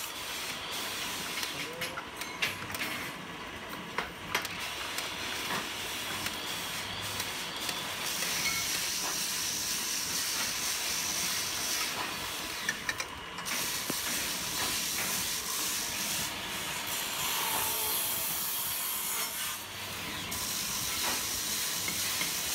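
Steady hiss of workshop noise, with scattered light clicks and taps of thin steel wire rods being handled and laid into a welding jig.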